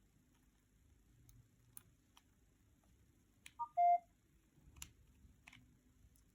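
Two short electronic beeps about halfway through, a brief higher one then a slightly longer, lower, louder tone, like a mobile phone's keypad tone, amid faint scattered clicks of small parts and tools being handled.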